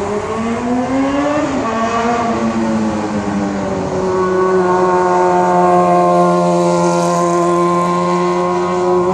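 Suzuki sport bike's exhaust as the bike accelerates hard: the engine note climbs in pitch, drops once about a second and a half in at a gear change, then holds a high, steady pitch and grows louder as the bike approaches.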